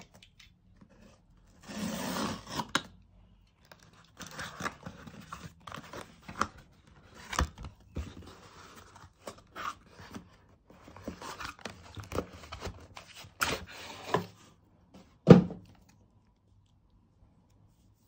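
Box cutter slicing the packing tape on a cardboard shipping box, then the cardboard flaps being pried open and scraped as the boxed iPad is slid out, in irregular bursts of scraping and tearing. A single loud thump comes late on.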